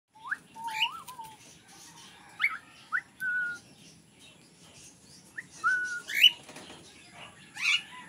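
Cockatiel whistling and chirping in short clusters of clear notes, some quickly rising and some held level.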